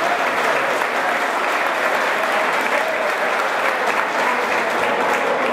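Crowd applauding steadily, with some voices calling out among the clapping.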